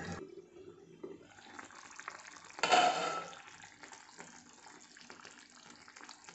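Fish curry simmering in a frying pan: faint bubbling with many small pops, and a short louder burst of noise about three seconds in.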